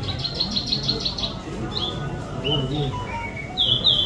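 Small caged songbird singing: a rapid trill of high notes for about a second, then a string of short, downward-sliding chirps, the loudest near the end.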